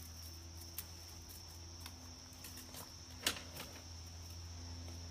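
A steady, high insect chorus, like crickets, over a low hum, with a few sharp clicks and ticks from hands working the bonsai's branches and wire; the sharpest click comes just past three seconds in.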